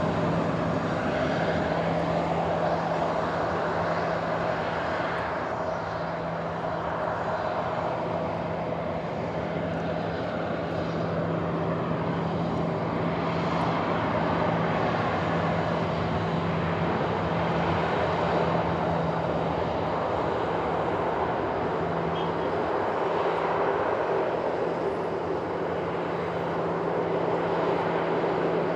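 Boeing 737-800's CFM56-7B turbofan engines running steadily as the jet taxis: a constant low hum under a broad jet rush that swells and eases slowly as the aircraft moves past.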